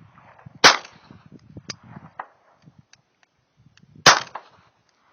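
Two pistol shots from a .380 handgun, about three and a half seconds apart, each with a short echo, with fainter sharp ticks between them.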